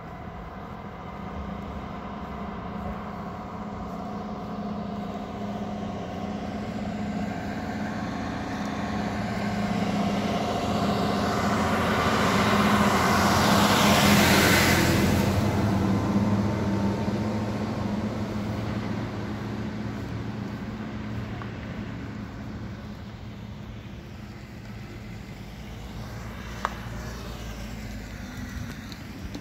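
A road vehicle passing close by, growing louder to a peak about halfway through and then fading away, over a steady low engine hum. A single sharp click comes near the end.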